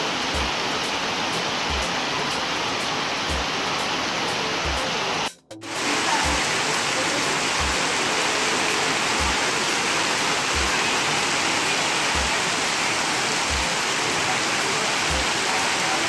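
Heavy rain pouring steadily, with rainwater gushing from roof drain spouts and splashing below. A soft low thud pulses about every second and a half underneath. The sound cuts out briefly about five seconds in.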